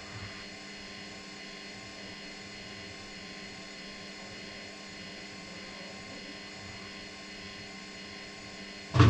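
Electrolux EW6S404WU front-loading washing machine running mid-wash with a steady hum made of several fixed tones. Just before the end a much louder, deeper sound starts abruptly.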